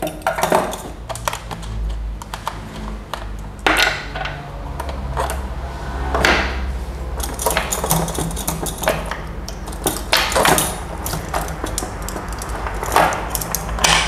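Clicks, clinks and rattling of a Stihl chainsaw being stripped by hand: the side cover, guide bar and saw chain coming off, with chain links jingling and loose nuts and a steel multi-tool knocking on the wooden bench. Four sharper metallic clinks ring briefly.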